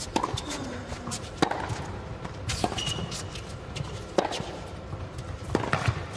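Tennis rally on an indoor hard court: racket strikes on the ball about every second and a half, five in all, with short high squeaks of players' shoes between them over the low murmur of an arena crowd.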